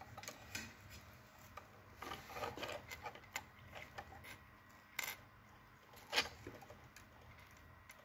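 Hands handling thin hookup wires and a small circuit board: faint scattered rustles and light clicks, with two sharper ticks about five and six seconds in.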